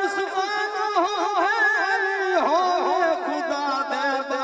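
A man's voice singing a naat, an Urdu/Punjabi devotional poem, amplified through a microphone. He holds long notes and wavers them in a wide, quick vibrato.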